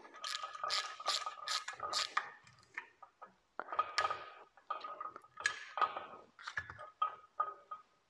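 A wrench tightening stainless steel nuts on bolts: quick metallic clicks in several short runs, with a faint ringing between them.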